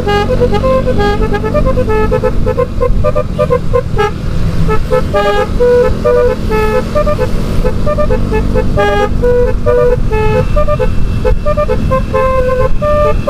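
A basuri telolet horn on a motorcycle plays a fast melody of short, rapidly changing tooting notes throughout, over a steady low rumble.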